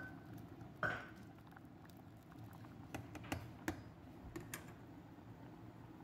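Metal slotted spoon knocking and clicking against a cooking pot as lidah burung pasta is stirred, with one sharper ringing knock about a second in and scattered light clicks later, over the steady low sound of soup boiling.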